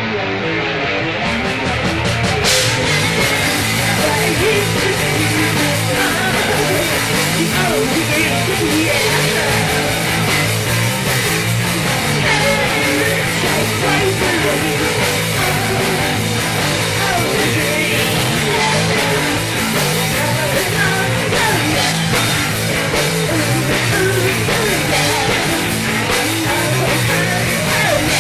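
Rock band playing live in rehearsal: electric guitar, bass and drums together in a fast punk-style song, with the sound filling out to the full band about two seconds in.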